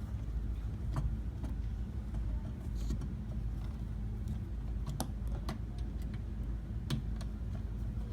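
Scattered light clicks and taps of a small screwdriver tightening the little retaining screws on a plastic headlight assembly, over a steady low hum.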